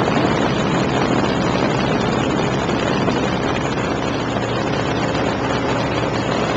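Waco biplane's engine running steadily in flight, mixed with loud wind rushing through the open cockpit and buffeting the microphone.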